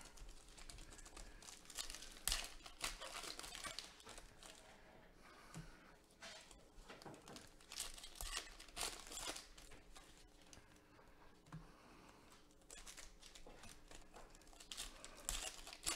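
Foil wrappers of Leaf Draft Football trading card packs crinkling and being torn open by hand, in irregular rustles that come and go.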